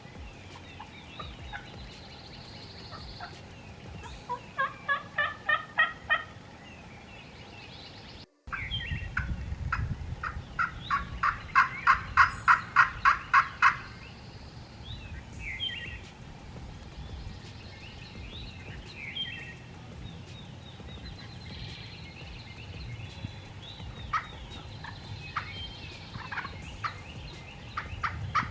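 Turkey calling: runs of loud, evenly spaced notes, several in a row, the loudest run about halfway through, with small birds chirping between them. The sound drops out for a moment a little after the first run.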